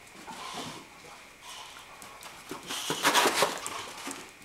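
Two dogs at play: a puppy and a larger dog scrambling, their paws and bodies thudding and rustling against the couch, blankets and carpet. The loudest burst of scuffling comes about three seconds in.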